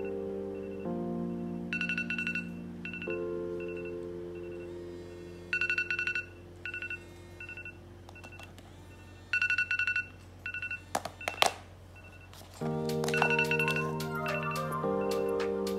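Mobile phone ringtone playing: held synthesized chords that change every few seconds, under short bursts of a high ringing trill that come about every four seconds. A few sharp clicks sound about eleven seconds in.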